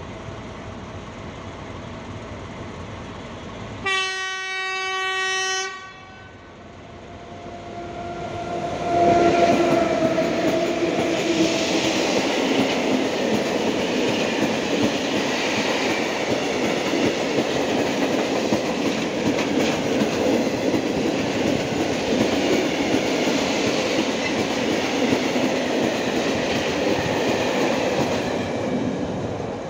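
ET41 twin-section electric locomotive sounding its horn: a short blast about four seconds in and a second, softer call a few seconds later. Then its long freight train of tank wagons rolls past with a steady rumble and wheel clatter on the rails.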